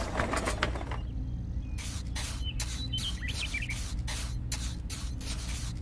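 Small hand trowel smoothing wet cement over a curved metal sheet: a run of short, wet scraping strokes, about three a second, starting some two seconds in, over a steady low hum.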